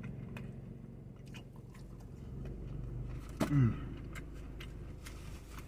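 Close-up chewing of a mozzarella stick, with soft wet mouth clicks, and a brief hummed "mmm" of falling pitch about three and a half seconds in.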